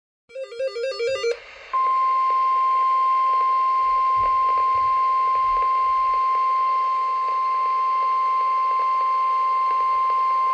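Emergency alert tone: a single steady high beep near 1 kHz, the NOAA Weather Radio 1050 Hz warning alarm, held for about nine seconds to announce a severe thunderstorm warning. A short warbling burst of tones comes before it in the first second.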